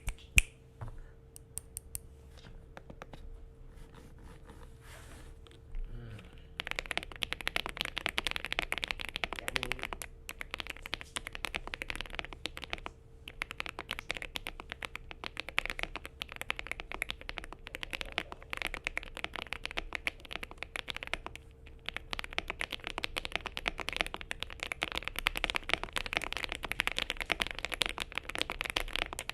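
Akko Mod007 PC mechanical keyboard with Smoothie V1 switches, tape-modded and foam-filled, being typed on. A few scattered keystrokes at first, then fast continuous typing from about six seconds in, with brief pauses about halfway and two-thirds through.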